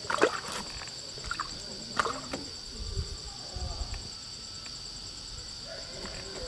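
Insects droning in a steady high-pitched hum at two pitches, with a few short sharp sounds in the first two seconds.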